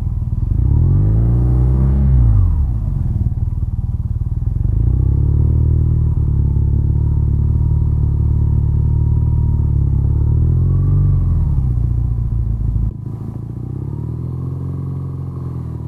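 BMW R nineT's 1170 cc boxer twin riding at low speed, its revs rising and falling several times as it pulls away and changes speed. About thirteen seconds in, the deepest part of the rumble drops off abruptly while the engine keeps running.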